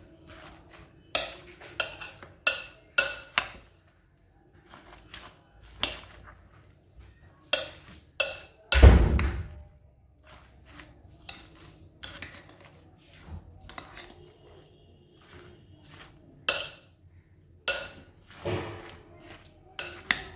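Metal spoon clinking and scraping against a glass bowl while stirring fruit in cream, in irregular strikes, with one heavier knock about nine seconds in.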